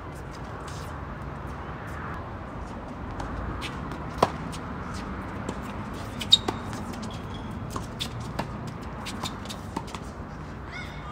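Tennis balls being struck by rackets and bouncing on a hard court during a doubles rally: a string of sharp pops, the loudest about four and six seconds in.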